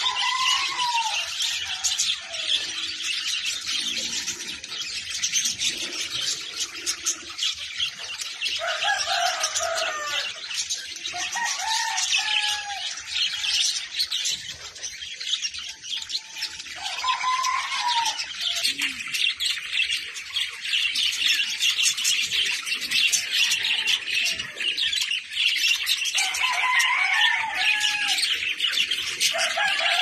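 A flock of caged lovebirds chattering: constant rapid high chirps, with a louder, lower call returning every few seconds.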